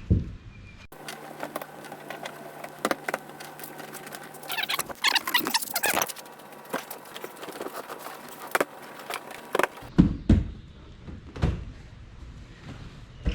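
Clicks, knocks and metal rattles of a VW Beetle's seat bench being worked back into place, with a low steady hum under the middle stretch and a dense run of rattles about halfway through. Two heavier thumps come near the end as the seat goes in.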